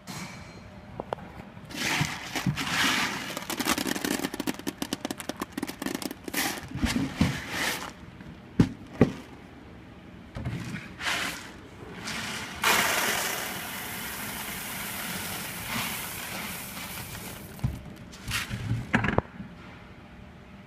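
Coffee beans pouring from a color sorting machine's outlet chutes and rattling into plastic bins: a dense crackle of many small hits, with a steadier hiss through the middle and a few sharper knocks.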